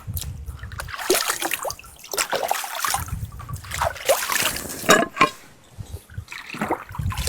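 Muddy potatoes being washed by hand in water: irregular splashing and sloshing in bursts.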